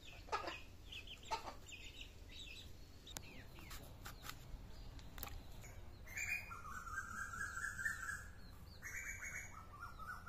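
Chickens calling: short high chirps at first, then from about six seconds in a long drawn hen call, repeated near the end. A few sharp clicks come from the boti blade slicing pointed gourd.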